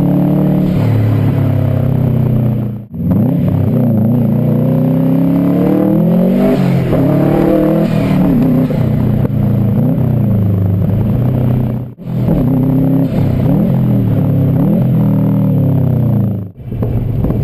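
Subaru Impreza WRX GC8's turbocharged boxer four-cylinder engine revving up and falling back again and again, with quick blips of the throttle. The sound cuts out briefly three times: about three, twelve and sixteen and a half seconds in.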